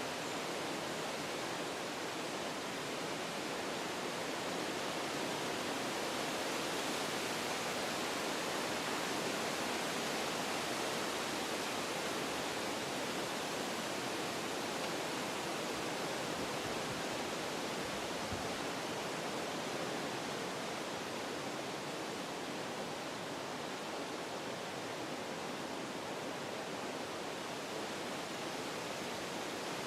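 Wind blowing through forest trees: a steady rush of moving leaves and branches that swells slightly in the first half, then eases off.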